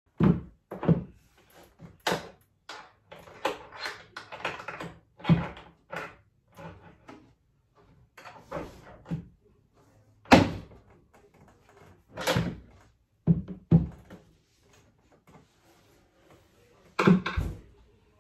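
Wooden cabinet door being fitted to a wall cabinet's hinges: an irregular series of knocks and clicks with handling noise between them, and a few sharp thunks as the door meets the cabinet.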